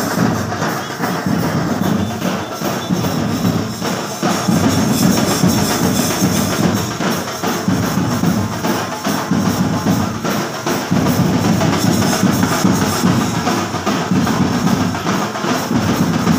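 Loud drum-heavy music: dense, unbroken percussion with a strong low beat.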